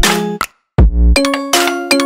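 Electronic jingle music with chime-like pitched notes and a beat. It cuts out briefly about half a second in, then comes back with a deep bass hit and a quick falling sweep before the chiming notes resume.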